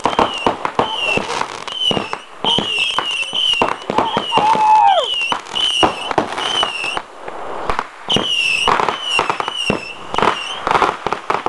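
A consumer fireworks finale board going off: a rapid string of sharp bangs and pops mixed with short warbling whistles, and one longer falling whistle about four to five seconds in.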